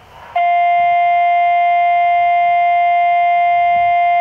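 Loud, steady audio test tone, one held pitch with overtones, played through the speaker of a TYT UV-88 handheld radio receiving it on 2 meters. It starts about half a second in.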